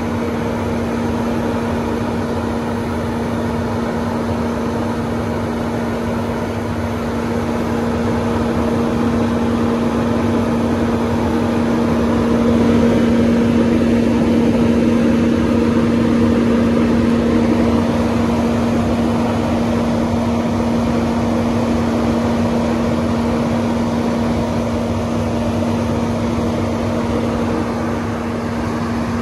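Hinode flat-bed grain dryer's burner and blower fan running steadily after ignition: a rushing noise with a strong, even hum, slightly louder in the middle.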